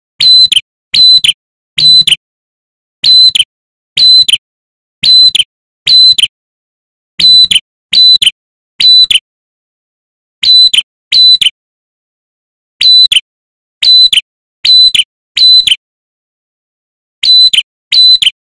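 Ashy tailorbird (cinenen kelabu, prenjak kepala merah) calling over and over: a sharp, clipped note that starts high and drops, given about once a second in runs broken by short pauses.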